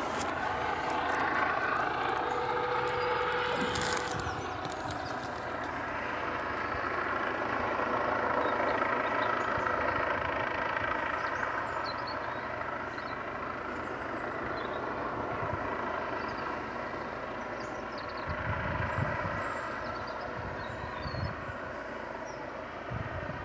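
Police helicopter flying low overhead: a steady drone and whine from its engine and rotors, drifting slowly up and down in pitch. A few low bumps near the end.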